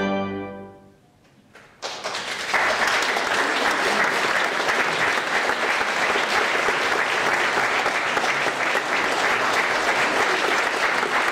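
Final chord of a pipe organ dying away in the hall's reverberation, a second of near quiet, then the audience starts applauding about two seconds in and keeps clapping steadily.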